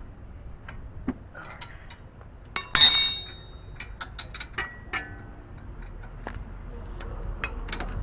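Scattered small clicks of hand tools on metal, and about three seconds in one loud metallic clang of a steel tool striking metal, ringing briefly before it dies away.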